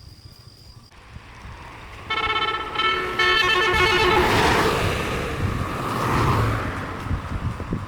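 A vehicle horn sounds for about a second, starting about two seconds in. A loud vehicle rush then swells and fades away.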